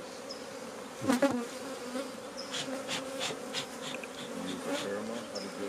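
Honeybees buzzing over an open hive, a steady hum with individual bees passing close, their buzz rising and falling in pitch. About halfway through comes a run of short, sharp ticks.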